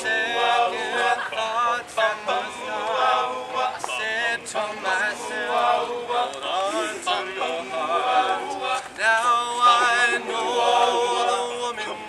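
An all-male a cappella group singing in close harmony, with a lead melody line carried over sustained backing voices and no instruments.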